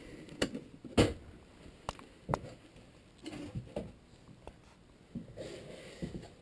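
Scattered knocks, taps and soft thumps from handling a cardboard box of steel bolts and moving about on foot, the sharpest knock about a second in.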